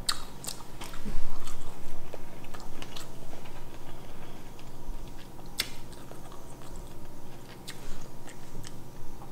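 Close-miked chewing of a mouthful of seafood: wet mouth sounds with scattered sharp clicks.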